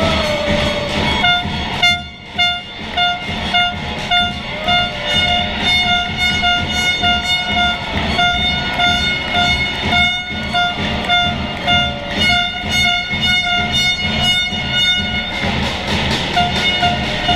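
Electronic music with a steady bass beat and a horn-like synth note repeated in short, rhythmic stabs.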